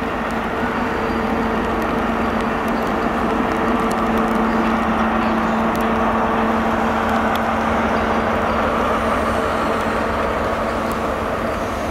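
Diesel engine of a Class 43 HST power car running with a steady drone and hum as the train moves slowly past.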